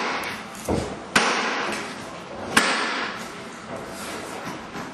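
Hand caulking gun squeezed to lay a bead of sealant along a panel joint: two sharp clicks of the trigger about a second and a half apart, with a softer thump before them, over a steady hiss of room noise.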